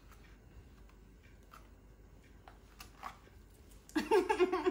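Faint scattered clicks and rustles of a small packaged item being picked at by hand, then about four seconds in a woman laughs loudly.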